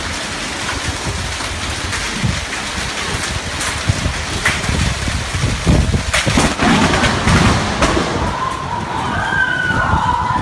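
Heavy rain with wind noise on the microphone, broken by a few sharp knocks. Near the end an electronic alarm tone starts wailing.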